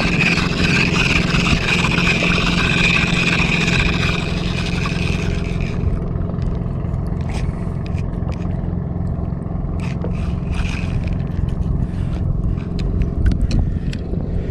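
Daiwa Crossfire LT 1000 spinning reel cranked on a lure retrieve, with a scraping, grinding whir: the reel is noisy and due for maintenance. The whir stops about five seconds in, leaving scattered light clicks over a steady low hum.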